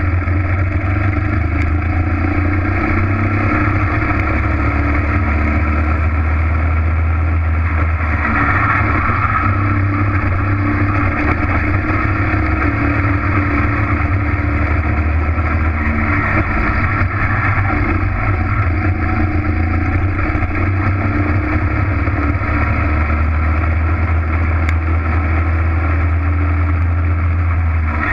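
Racing kart engine running hard, heard close up from the kart itself. It runs steadily throughout, its pitch shifting a little as the kart is driven around the track.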